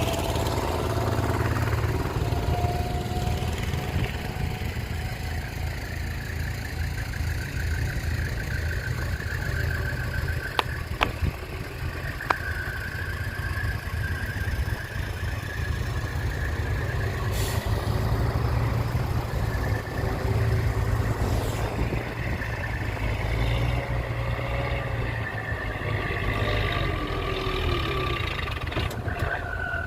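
Diesel engines of a small crawler bulldozer and a dump truck running steadily, with a few sharp knocks about ten to twelve seconds in.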